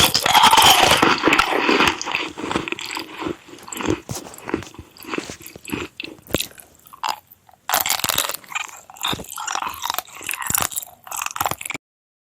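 Irregular crunching and crackling, dense and loud for the first couple of seconds, then sparser, with a short pause past the middle and a sudden stop near the end.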